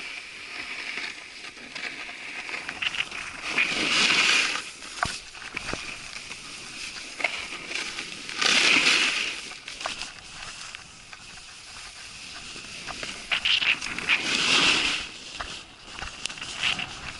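Snowboard scraping and sliding over packed snow, swelling loudly three times, about 4, 9 and 14 seconds in, with crunching and sharp clicks in between.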